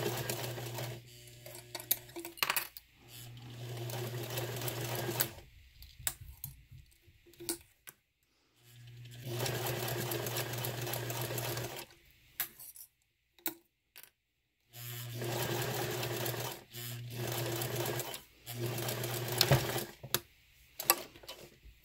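Sewing machine stitching along a vinyl strip in about six short runs, stopping and starting, with sharp clicks in the pauses between runs.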